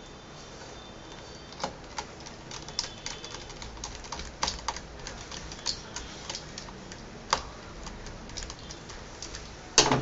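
Small Phillips screwdriver turning the screws back into a laptop's metal hard-drive bracket: a run of small, irregular clicks and ticks of metal tip in screw heads, with a louder knock near the end.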